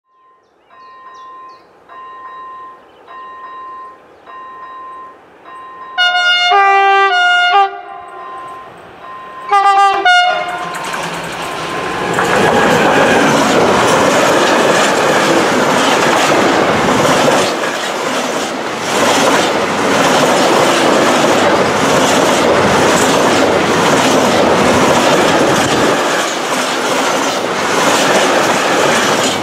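Bombardier Traxx electric locomotive sounding its horn as a greeting: a long blast of several notes about six seconds in and a short one near ten seconds, over a faint beeping tone that repeats about once a second. Then the freight train passes close by, a loud steady rumble with the clatter of empty container flat wagons rolling over the rail joints.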